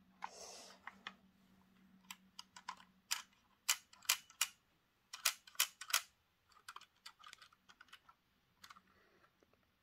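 Small plastic clicks and rustling from handling a Roco model railway coach and its plastic packaging. A brief rustle comes first, then a run of sharp, irregular clicks.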